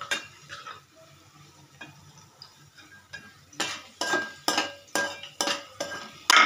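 Metal spoon stirring cashews and almonds in a metal pan, scraping and knocking against it with sharp clinks. The clinks come about twice a second in the second half.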